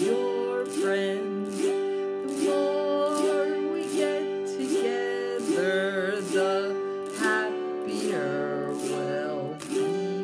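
A woman singing a children's sing-along song over a strummed acoustic guitar, with a strum about every second.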